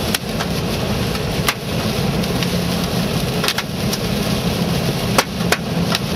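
Large hailstones, some around 4 to 5 cm, banging on the body of a moving 4WD, about six sharp hits, over the steady noise of heavy rain and hail on the vehicle and its engine and road rumble, heard from inside the cabin.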